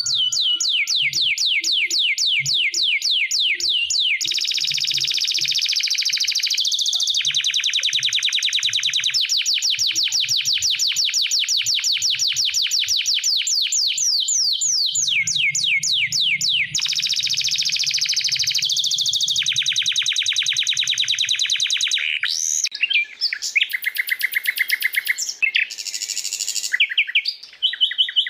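Songbird calls from a spliced compilation of several species: a loud, continuous trill of rapidly repeated down-slurred high notes, several a second, that changes abruptly a few times. Near the end it gives way to shorter, more varied chirping phrases.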